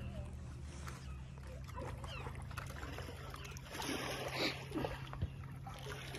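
A steady low hum runs under open-air lakeshore ambience, with a brief cluster of faint short sounds about four seconds in.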